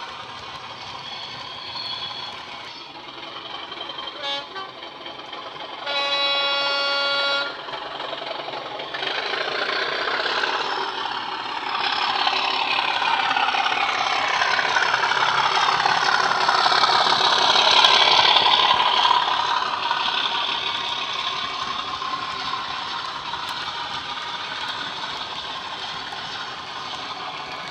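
Sound decoder of a Bachmann Class 37 model diesel locomotive playing through an upgraded double iPhone speaker. A long horn blast comes about six seconds in. Then the English Electric diesel engine sound builds, its pitch bending up and down, loudest as the locomotive passes, and eases off near the end.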